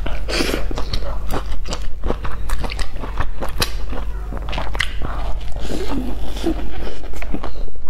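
Close-miked biting and chewing of a stuffed flatbread sandwich, with many quick crisp crackles from the bread crust between chews.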